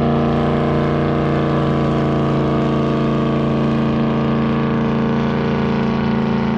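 Boat engine running at a steady speed: an even, unchanging drone with no rise or fall in pitch.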